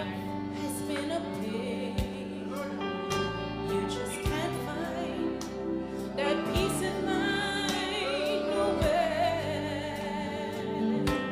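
A woman singing a slow gospel song with vibrato into a handheld microphone, over sustained instrumental chords and a soft drum hit about every two seconds.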